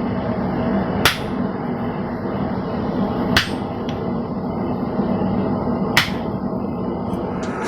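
Hand hammer striking hot steel on the anvil, three single blows about two and a half seconds apart, over a steady rushing background noise.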